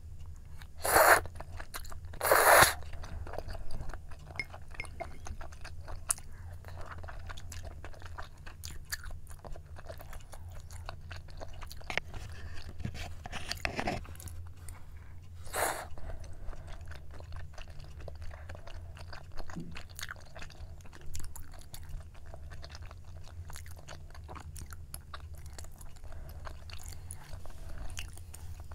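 A person slurping noodles in two loud, short bursts near the start, then chewing with small, wet mouth clicks; another slurp comes about halfway through.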